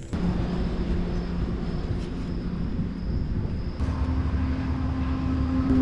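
An engine running steadily with a low rumble; about four seconds in its pitch steps up and it grows louder, as under more throttle.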